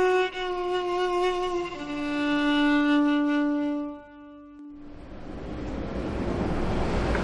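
Background music with long held, slowly changing notes fades out about four seconds in. A steady rushing noise then rises in its place: a car coming closer.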